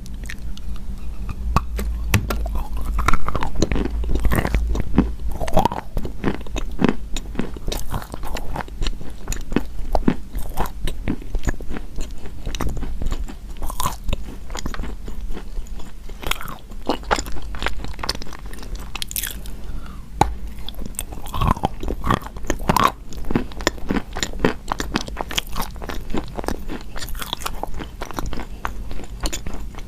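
Pieces of chalk being bitten and chewed close to the microphone: a dense, continuous run of sharp crunching crackles, loudest about three seconds in.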